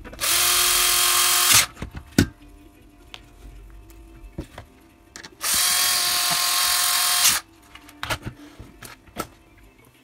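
Cordless electric screwdriver whining as it runs on the screws that hold a monitor's power-supply board to its metal chassis. It runs twice, for about one and a half seconds and then about two seconds, with small clicks and knocks of handling between the runs.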